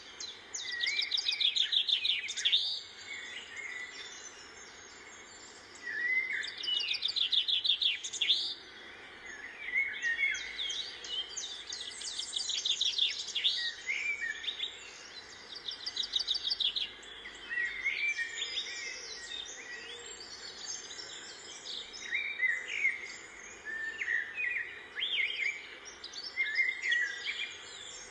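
Box cutter slicing through packing tape and cardboard in several loud bursts of fast rasping strokes. Birds chirp throughout.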